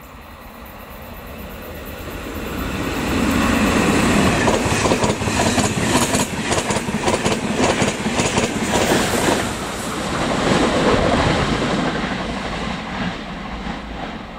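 Irish Rail Mark 4 intercity train and its 201 class diesel locomotive passing through a station. The rumble of the wheels builds, then a rapid clatter of wheels over rail joints as the coaches go by, fading near the end.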